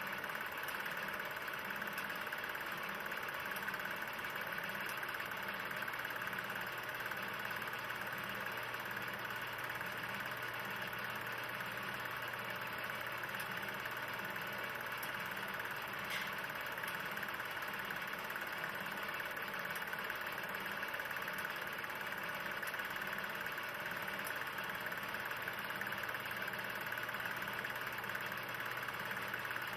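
16 mm film projector running: a steady mechanical whirr with a faint, even clatter and a low hum.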